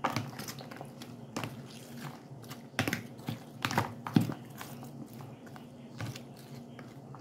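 Eggplant salad being mixed by hand in a plastic container: irregular wet squishes of sliced onion, tomato and eggplant, with small clicks and taps of fingers against the plastic sides.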